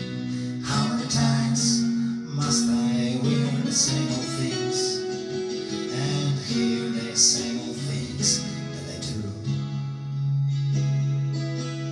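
Acoustic guitar strummed slowly, one chord stroke about every second, each chord left to ring.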